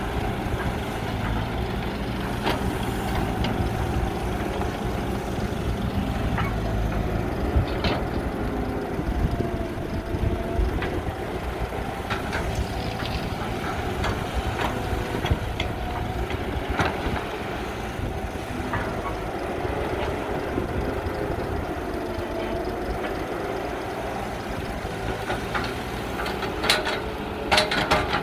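Caterpillar hydraulic excavator working, its diesel engine running steadily and rising and falling in pitch as the hydraulics take load. Scattered knocks come from the bucket and soil being loaded into a dump truck bed, with a burst of clanking near the end.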